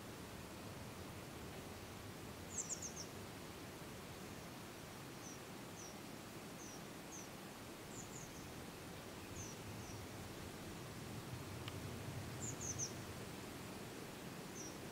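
A small bird calling with short, high chirps, single ones scattered through and three quick runs of three or four notes, over a steady low rush of wind.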